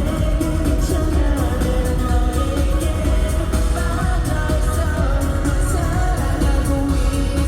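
K-pop song performed live by a boy group: sung vocals over a backing track with a heavy, steady bass beat.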